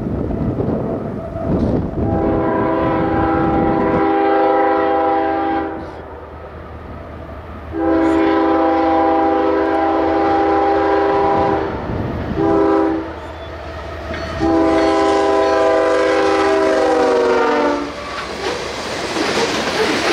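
Freight locomotive's multi-note air horn sounding the grade-crossing signal, long, long, short, long, over the rumble of the approaching train. The pitch of the last long blast drops as the locomotive passes, and the rumble and clatter of the train rolling by follow.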